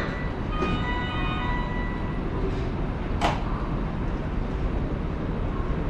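Doors of a JR West 323-series train closing at a station platform. Steady chime tones sound for the first couple of seconds, then a single sharp sound about three seconds in, over a steady low rumble of the idling train and station.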